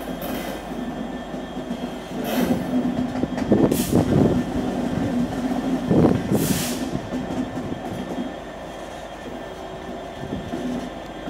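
Freightliner Class 66 diesel-electric locomotive, with its two-stroke V12 engine, passing slowly with a steady engine hum. The noise builds to its loudest around four to six seconds in, with brief hissy bursts about two, four and six and a half seconds in, then eases off.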